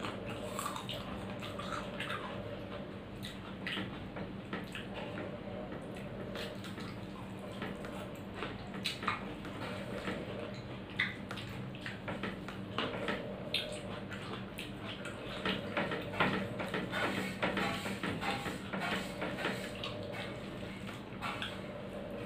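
Close-up eating sounds: irregular wet lip smacks and chewing of rice and fried vegetables eaten by hand, with fingers now and then working the food on the plate. The clicks come thicker in the second half, over a steady low hum.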